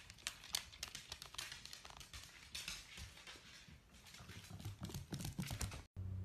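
Dachshund puppies' claws clicking and skittering on a hardwood floor as they scamper and play, in quick irregular ticks with a few soft thuds. Near the end the sound cuts off and a steady low hum begins.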